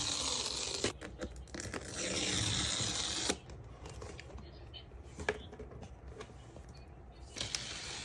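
Packaging being handled and opened: about three seconds of tearing, rustling noise, then quieter scattered clicks and taps.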